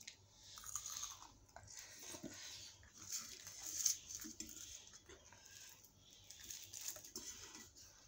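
A person chewing and crunching mouthfuls of puri (deep-fried wheat bread) with dum aloo, in irregular bites with small mouth clicks, loudest a little before the middle.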